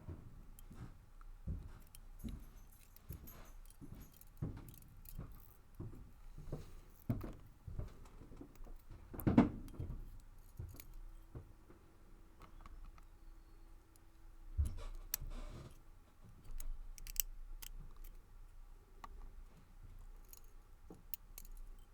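Small brass and steel lock parts being handled while pins and springs are loaded into a padlock cylinder's pin chambers: irregular light metallic clicks and taps, with a louder tap about nine seconds in.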